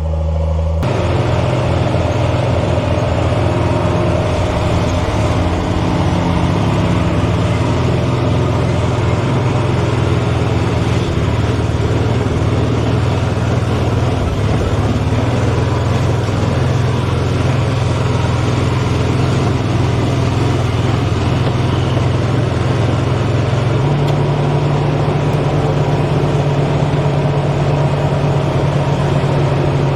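A vehicle's engine runs steadily while driving, with a constant rushing noise over it. The engine note steps up in pitch about 24 seconds in.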